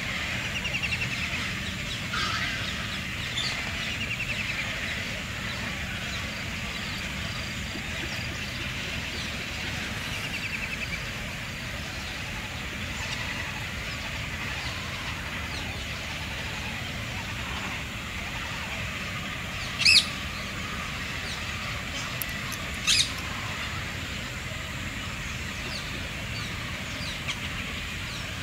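Birds at a painted stork colony calling: steady overlapping chatter with rattling trills and chirps. Late on come two sharp, loud calls about three seconds apart.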